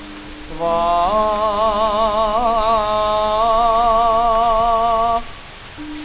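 Javanese song: a solo voice holds one long note with a slow vibrato over a steady low tone, starting about half a second in and stopping about five seconds in.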